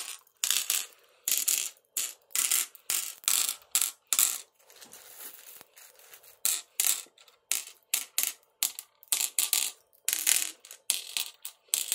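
Glass Mancala stones dropped one by one into the pits of a wooden Mancala board, clicking against the wood and the other stones a few times a second, with a short pause a little before halfway.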